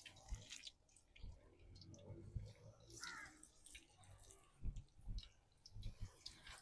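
Quiet sizzle of pakoras frying in hot oil, with scattered light clicks and taps.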